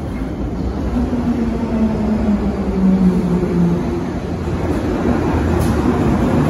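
London Underground Bakerloo line 1972 Stock train rumbling through the tunnel as it arrives at the platform, growing louder as it nears. A low hum slides down in pitch in the first half.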